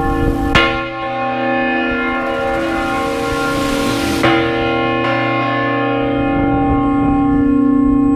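Large church bell swinging full circle (a volteo), its clapper striking about half a second in and again about four seconds later. The deep, many-toned ring carries on between the strokes.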